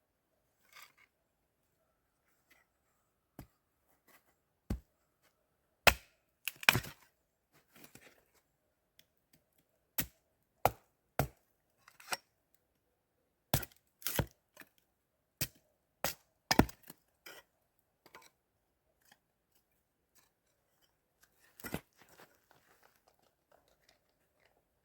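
A series of sharp cracks and knocks at irregular intervals, some followed by a brief crackle, with the loudest a few seconds in and again midway.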